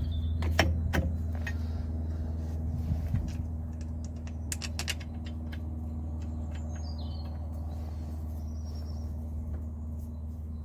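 A steady low hum runs throughout, with a few sharp metallic clicks and taps of tools and brake parts being handled. The clicks are scattered near the start, with a quick cluster of them about four and a half seconds in.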